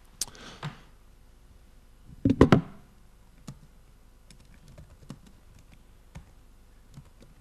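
Laptop keyboard keys being pressed: a few sparse clicks, with a loud cluster of two or three knocks about two and a half seconds in.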